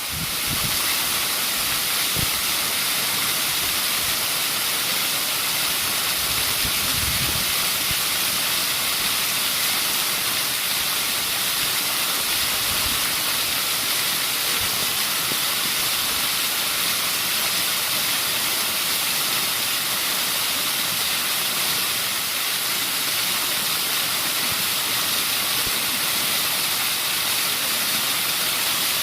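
Waterfall: a steady rush of falling water, an even hiss that holds without change.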